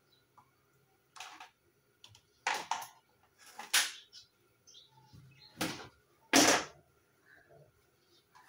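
Short scrapes and knocks of cooking work, about six in all, with quiet between them and the loudest near the end.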